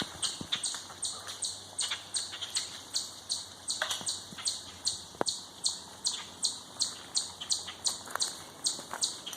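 A quick, even rhythm of high-pitched rasping pulses, close to three a second, with a few sharp knocks that fit acorns dropping to the ground.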